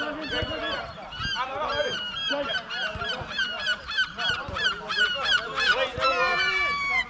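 A flock of geese honking, many short overlapping calls in quick succession, with a few longer, slightly falling calls near the end.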